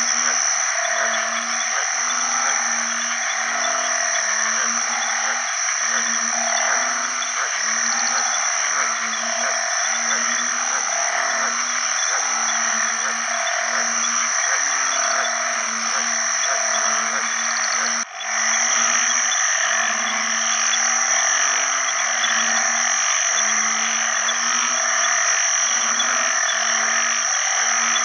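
Male banded bullfrogs (Kaloula pulchra) giving their mating call: a low note repeated roughly once a second. Behind it are a dense chorus of other frogs and a steady high-pitched drone.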